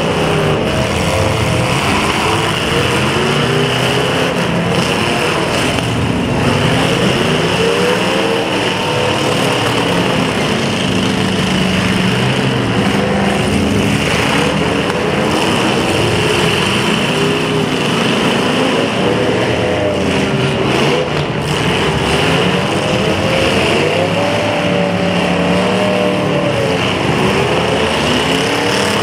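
Several demolition derby car engines running and revving at once, their pitches rising and falling over one another above a continuous dense engine noise.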